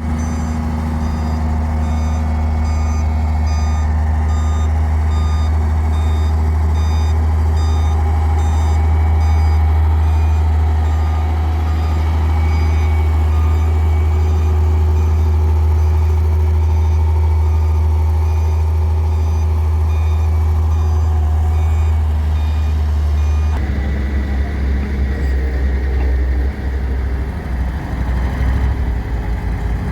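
Heavy diesel machinery running steadily with a deep engine hum, while a vehicle's reversing alarm beeps at an even pace through the first part. About two-thirds of the way in the engine note changes and turns rougher.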